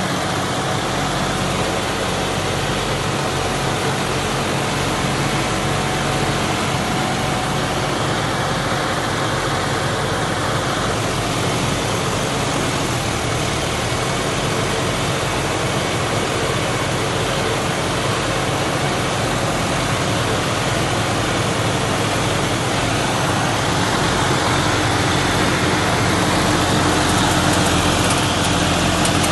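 John Deere tractor diesel engines running steadily at low speed, getting a little louder over the last few seconds.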